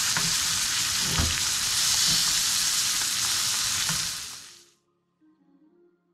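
Scotch fillet steak frying in butter in a hot pan, sizzling steadily while being basted with a spoon, with a few light taps of the spoon in the pan. The sizzle cuts off suddenly near the end, leaving faint soft music.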